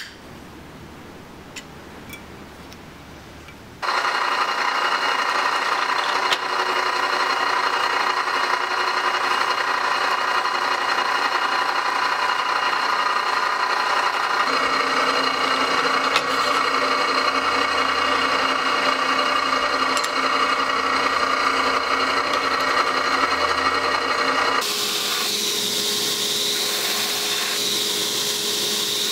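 A benchtop drill press starts about four seconds in and runs steadily, drilling through wooden knife-handle scales clamped to the blade's tang; its tone shifts about halfway. Near the end it gives way to a belt grinder running with a hissier sound.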